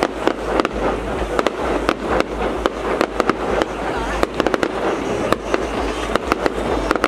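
Aerial fireworks display: shells bursting overhead in a rapid, irregular string of sharp bangs over a steady crackle.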